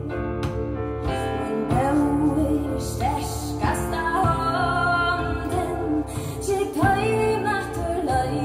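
A song with a female singer and instrumental backing playing through a pair of two-way loudspeakers, their tweeters fed through an audio film capacitor in the crossover.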